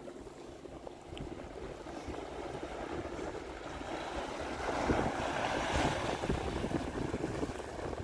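Small ocean waves surging into a narrow rocky channel and washing up over the sand, the wash swelling to its loudest about halfway through.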